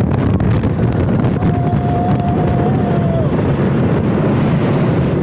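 Wind buffeting the microphone and the continuous rumble of a wooden roller coaster train (The Voyage) running fast through its layout on rain-wet track.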